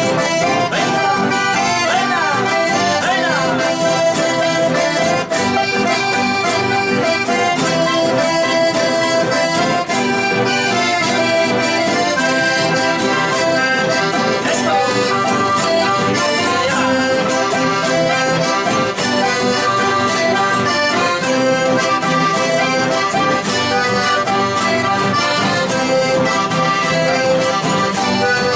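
Accordion-led folk music with a steady beat, typical of Argentine chamamé.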